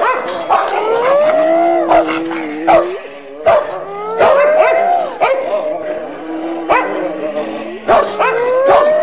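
An animal howling in long rising wails, with short yips between them and sharp clicks now and then.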